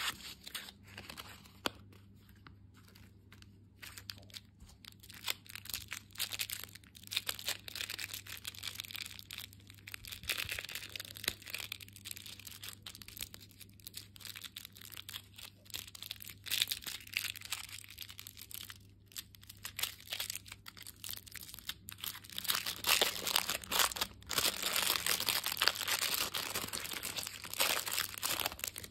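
Hands crinkling and tearing small plastic and paper wrappers: a mini sticker-card packet, then a clear plastic bag around a small plastic toy. The crackling is irregular, full of small snaps, and loudest in the last few seconds.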